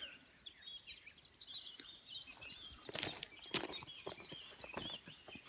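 Faint songbird song: a run of short, high, repeated chirping notes, with a few soft clicks of handling about halfway through.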